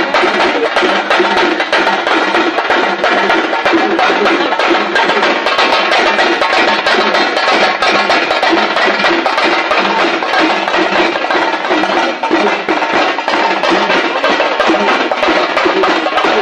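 Music with fast, steady percussion: rapid wood-block and drum strikes over a continuous instrumental backing.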